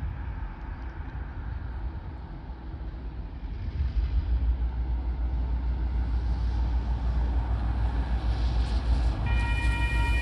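Diesel freight locomotives approaching: a low engine rumble that grows louder about four seconds in and keeps building. About nine seconds in, the locomotive's horn starts, a steady chord of several tones.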